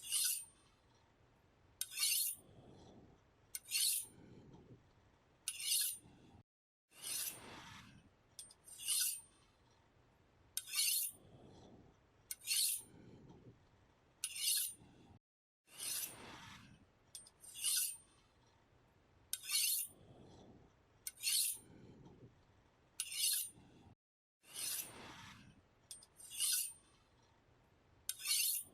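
A knife blade being sharpened: repeated scraping strokes of steel drawn along a sharpener, about one every two seconds, each a bright high rasp, some trailing into a longer, lower scrape.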